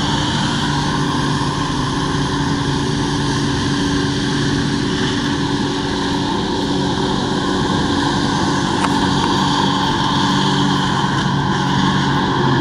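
Jet ski engine running steadily under load, pumping water up the hose to a flyboard, with the hiss of the flyboard's water jets over it.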